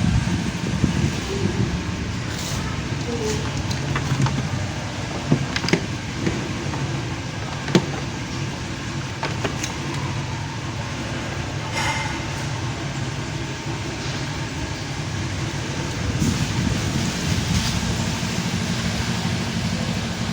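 A steady mechanical hum, with a few short clicks and knocks scattered through it.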